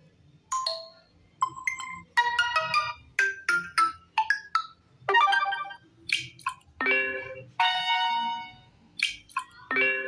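Notification tones on an Infinix Android phone being previewed one after another through its speaker: a string of about fifteen short chimes and jingles, several cut off as the next tone is tapped.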